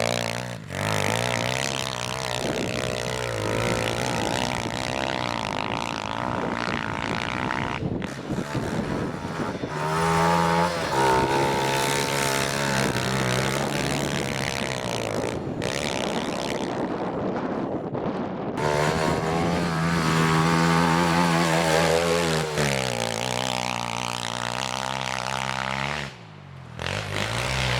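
Small single-cylinder four-stroke pit bike engine under riding, its pitch rising and falling as the throttle is opened and eased off again and again, with a brief let-off near the end.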